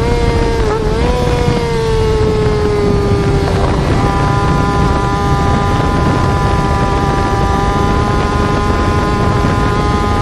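Motorcycle engine sound, presented as a Yamaha R6 sport bike's exhaust, held at a steady high pitch that dips slightly in the first few seconds and then holds level, over a rush of wind and road noise.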